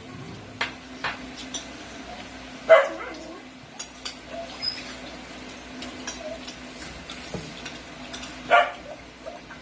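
Spoons and forks clicking on plates during a meal, over a steady low hum, with two short sharp calls a few seconds apart standing out as the loudest sounds.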